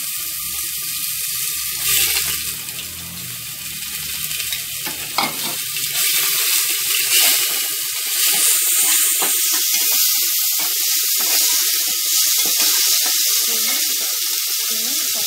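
Sliced onion sizzling in hot oil in an aluminium pressure cooker, stirred with a metal slotted spoon that scrapes the pot now and then. The steady sizzle grows louder about six seconds in.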